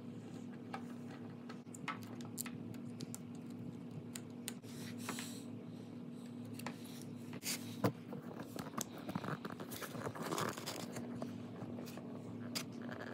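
Clear acrylic setup gauges and small parts handled on a wooden tabletop: scattered light clicks and scrapes, with one sharper knock about eight seconds in, over a steady low hum.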